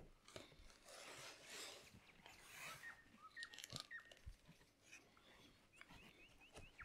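Near silence: faint rustling and soft taps of hands pressing shortcrust dough into a fluted metal tart tin, with a few faint high chirps.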